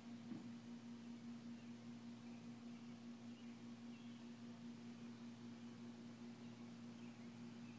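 Near silence with a faint steady low hum that holds one pitch throughout.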